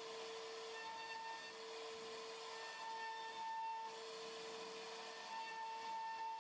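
CNC router spindle whining at a steady pitch as its bit carves a relief pattern into wood, over a hiss of cutting. A higher tone swells in and fades out three times as the cut goes on.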